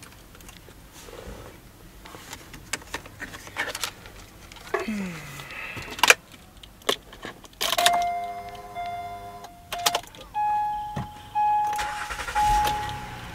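Keys jangling and clicking in the cabin of a 2008 Acura MDX, with a short falling whir, then the dashboard's warning chimes: a cluster of steady tones for about two seconds, followed by a single chime repeating about once a second. About a second before the end, the 3.7-litre VTEC V6 starts, a low rumble under the chimes.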